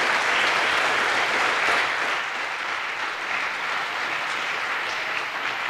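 Audience applauding, sustained clapping that eases a little after about two seconds.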